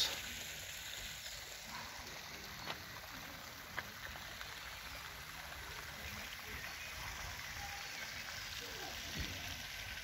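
Quiet outdoor ambience: a faint, steady hiss with two soft ticks a few seconds in.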